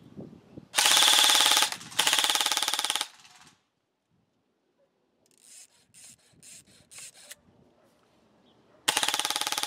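King Arms Black Rain Ordnance BRO-15 airsoft electric rifle firing full-auto: two bursts of about a second each, the gearbox cycling in a fast, even rattle. A run of about six lighter, sharp clicks follows, and another burst starts near the end.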